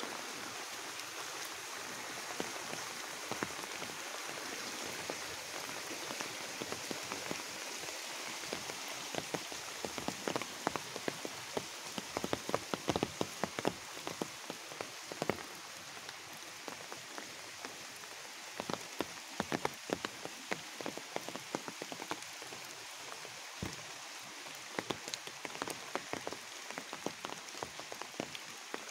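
Steady rain with many sharp, close drop hits ticking over the hiss, thickest a third of the way in and again near the end.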